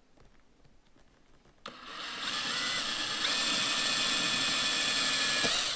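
Cordless drill with a 1/8-inch pilot bit boring a hole through a boat's fiberglass. It starts about a second and a half in, and its motor whine steps up in pitch twice as the trigger is squeezed harder.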